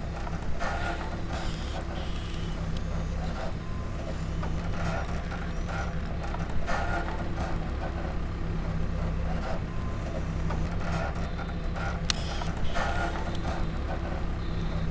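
Electric motors and gearboxes of radio-controlled construction models running: a steady low hum with whirring that swells every few seconds.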